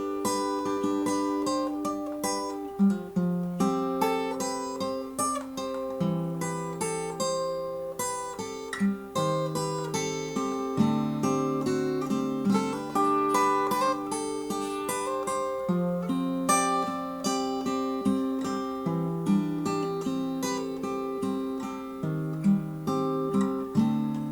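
Acoustic guitar playing a slow instrumental passage of sustained notes.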